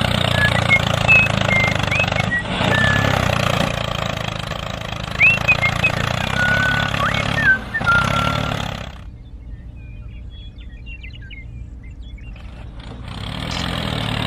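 A small engine running steadily, with short bird chirps over it. About nine seconds in the engine drops out, leaving faint chirping, and it comes back near the end.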